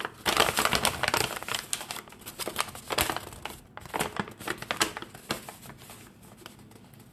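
Plastic packaging crinkling and rustling as it is handled, with a paper packing slip rustling as it is unfolded; dense crackles that thin out near the end.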